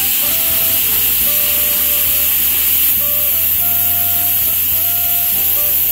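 Pressure cooker whistle: a loud, steady hiss of steam escaping under the lifted weight valve, sustained as one long whistle. It is the sign that the cooker is at full pressure, and each such whistle is counted to time the cooking.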